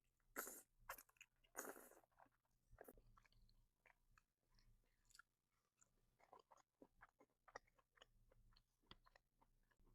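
A person chewing food with soft, wet mouth clicks and smacks. There are two louder, short noisy sounds about half a second and just under two seconds in, then only faint scattered clicks.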